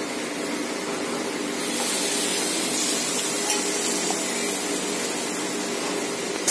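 Onion and tomato masala sizzling as it fries in a kadai, a steady hiss that gets a little louder about a second and a half in as ground masala goes into the pan and is stirred, with a few faint clicks of the spoon.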